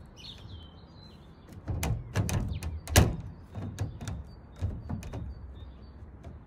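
A run of irregular knocks and thumps on the van's bodywork, the loudest about three seconds in, with birds chirping in the background.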